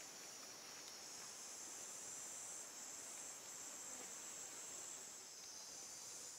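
Insects in a steady, high-pitched chorus, faint and continuous.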